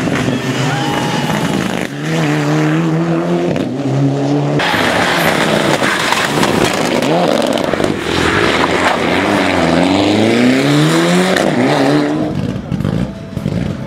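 Mitsubishi Lancer Evolution rally car's turbocharged four-cylinder engine at full throttle, revving up through the gears with short lifts between shifts. A louder rushing noise comes in about five seconds in as the car passes close.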